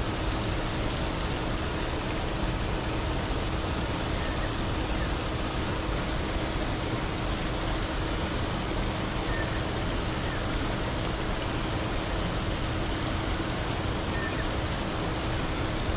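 A steady, even rushing noise with a faint low hum under it, unchanging throughout.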